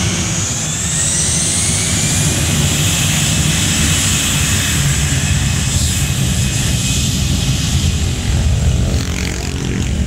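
Jet airliner's engines spooling up for takeoff: high whines rise in pitch over the first few seconds, then hold, over a loud, steady low rumble.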